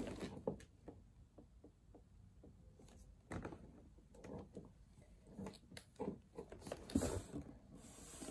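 Faint, scattered taps and rustles of dolls being handled and stepped along a wooden floor, with a few slightly louder knocks about three seconds in and again near the end.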